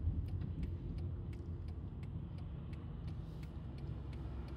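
Car interior noise while driving slowly: a steady low engine and road rumble, with faint light ticks now and then.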